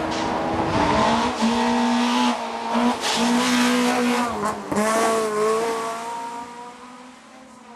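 Race-prepared first-generation Volkswagen Golf hillclimb car accelerating hard through a bend. The engine revs high with several short breaks at gear changes, then fades as the car climbs away.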